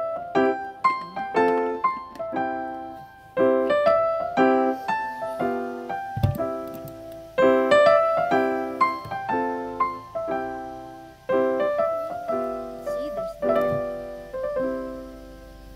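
Background piano music: a gentle melody of struck notes and chords, each fading after it is played.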